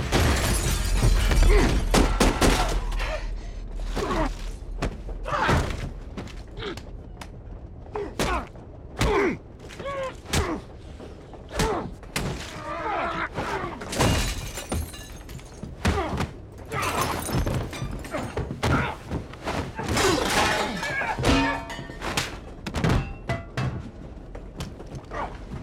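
Film fistfight sound: a long string of heavy thumps and thuds from blows and bodies slamming into a train carriage's walls and fittings, with men grunting and straining between hits and glass shattering. A deep rumble opens the fight in the first few seconds.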